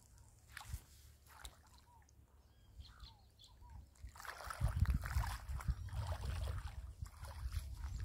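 Small waves lapping at the shoreline, with scattered short bird chirps. About halfway through, wind starts buffeting the microphone with a low, gusty rumble that becomes the loudest sound.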